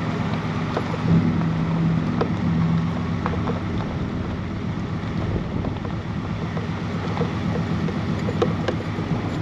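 Vehicle driving slowly on a dirt road, heard from inside the cab: a steady engine drone with tyre and road rumble, and light rattles and ticks throughout.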